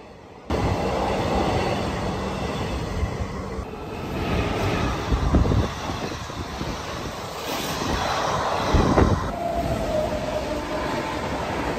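Passenger trains running through a station at speed: a heavy rumble of coach wheels on the rails with clacks as the bogies cross the rail joints. The sound comes in abruptly about half a second in and changes sharply near 4 s and again near 9 s, where the clips of different passing trains are cut together.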